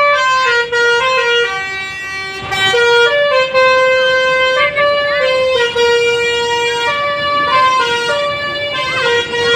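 Tour bus's telolet horn, a multi-tone musical air horn, playing a continuous melody with notes that step up and down from one held pitch to the next.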